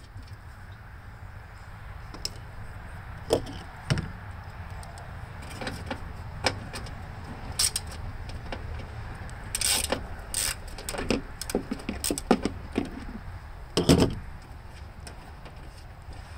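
Hands working a plastic engine cover loose from a push mower: scattered clicks, knocks and plastic rattles, thickest in the second half, with the loudest knock near the end.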